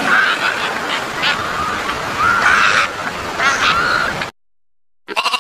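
A fur seal colony calling: many overlapping calls over a steady din, cutting off suddenly about four seconds in. A short bleat starts just before the end.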